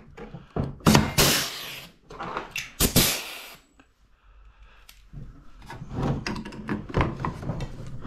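Mac Tools pneumatic pop-rivet gun firing twice, about a second in and about three seconds in, each time a short burst of compressed-air hiss as it pulls and snaps a rivet. Small clicks and knocks follow as a new rivet is loaded and the gun is set against the metal bracket.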